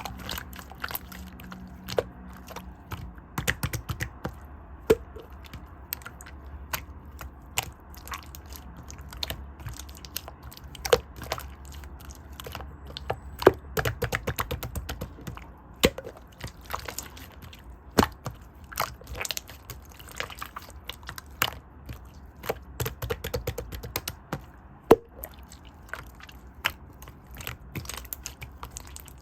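Scattered sharp clicks and taps at irregular intervals, over a faint low hum.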